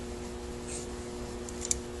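Light handling sounds from the removed Quadrajet carburetor top casting: two faint clicks, the second sharper, over a steady background hum.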